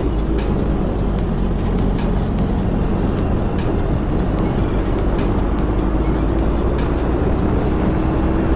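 Honda CBR650F's inline-four engine running steadily while under way, its note rising slowly, under a heavy rush of wind on the microphone.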